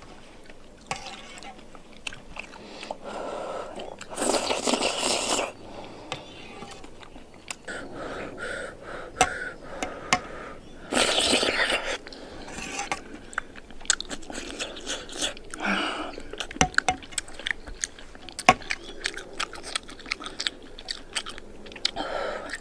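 Close-miked eating of thick, hot rice porridge with cured pork: a metal spoon clicking against an enamel bowl, chewing and mouth sounds, and twice a longer slurp of about a second.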